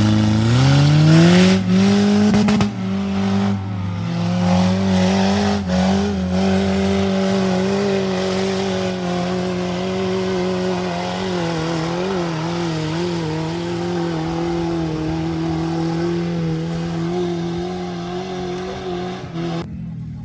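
Off-road vehicle's engine revving hard. The pitch climbs in the first couple of seconds, then holds at high revs with slight wavering, and stops abruptly near the end.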